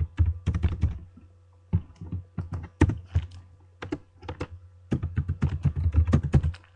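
Fast typing on a computer keyboard, keys clicking in four quick runs with short pauses between them, as a website login is typed in.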